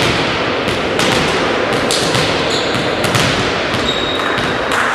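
Echoing sports-hall noise between volleyball rallies: a volleyball bounced on the hall floor, with several sharp thuds about once a second. Players' voices and footsteps sound in the background.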